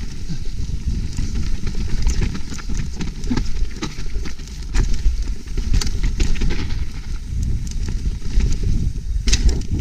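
Trek Slash 8 full-suspension mountain bike ridden fast down a rooty trail: steady wind rumble on the microphone, with tyres crunching and the bike rattling over roots and stones in many sharp clicks and knocks.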